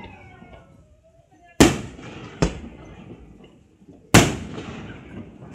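Aerial firework shells bursting: three sharp bangs at about a second and a half, two and a half and four seconds in, the second one weaker, and another right at the end, each trailing off in a long echo.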